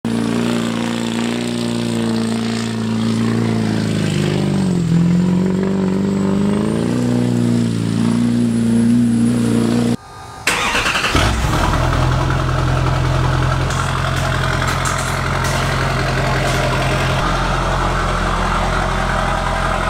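A steady engine-like drone whose pitch sags and recovers twice. After a brief break, a Chevrolet Silverado diesel pickup starts about eleven seconds in and settles into a steady idle.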